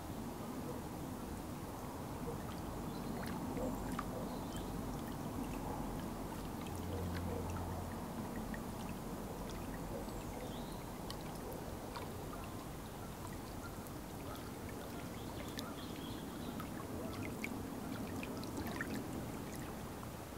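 Small waves lapping against shoreline rocks and reeds at the edge of a loch: a steady watery wash with many small scattered splashes and trickles.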